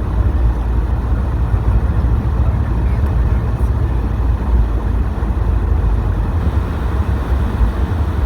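Subaru WRX STI driving at a steady pace: a continuous low rumble of engine and tyre noise, with no revving or distinct events.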